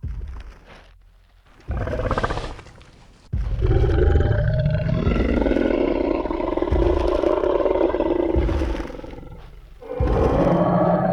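Designed Tyrannosaurus rex sound effect: a short growl about two seconds in, then a long, deep roar lasting about six seconds, and a second roar starting near the end.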